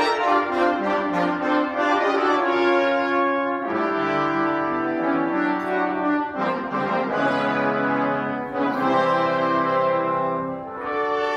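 Brass ensemble playing a fanfare: full held chords that change every second or two, with quick short notes in the first couple of seconds and brief breaks between phrases.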